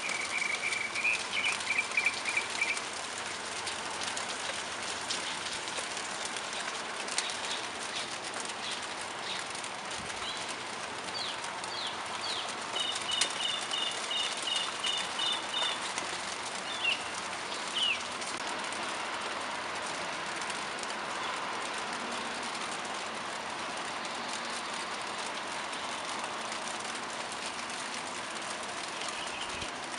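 Steady rain falling on leaves and trees, an even hiss with faint ticks of individual drops. Small birds call over it: a quick run of chirps near the start, and around the middle a few down-slurred notes and a fast, evenly repeated trill.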